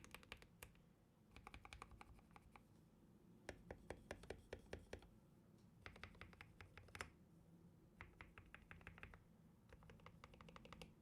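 Typing on a GK61 mechanical keyboard with lubed Gateron optical black linear switches and lubed PBT keycaps. The keys are struck in six quick bursts of rapid clicks with short pauses between them.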